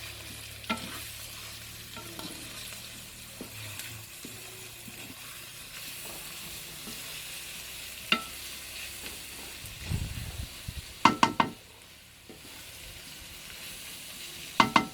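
Boneless chicken with spices frying and sizzling in a pan as it is stirred. A metal spoon strikes the pan several times: once early, once past the middle, and in quick clusters of sharp clinks around two-thirds of the way through and again near the end.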